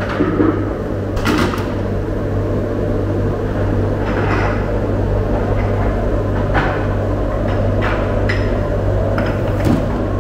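Steady low machine hum with scattered knocks and clinks of stone dizi jars on a stainless-steel trolley.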